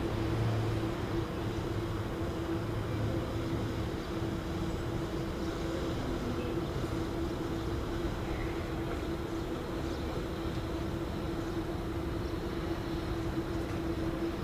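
Steady mechanical hum with one constant droning tone; a deeper rumble beneath it fades out about four seconds in.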